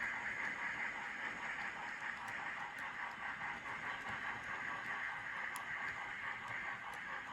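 N-scale model steam locomotive's DCC sound decoder playing steady steam chuffing through its tiny speaker, with a faint fast rhythm under a hiss and a few faint ticks.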